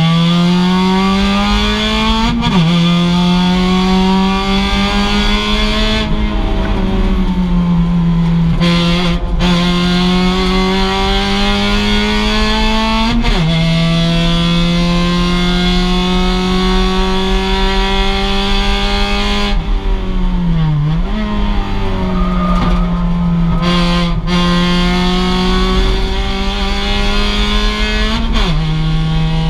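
2006 Mazda MX-5's stock four-cylinder engine under racing load, its pitch climbing steadily and dropping suddenly at three upshifts. Twice it eases off and the pitch falls, then picks back up on the throttle.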